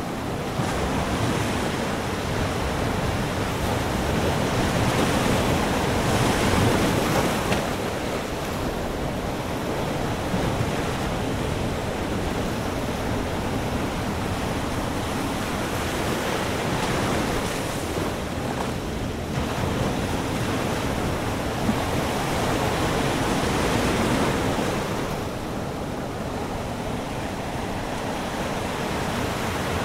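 Ocean surf breaking on a flat sandy beach, a steady roar of water that swells and eases as waves come in, with wind buffeting the microphone.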